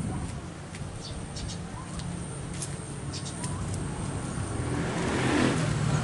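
A motor vehicle's engine running steadily, growing louder over the last second or two, with a few short bird chirps over it.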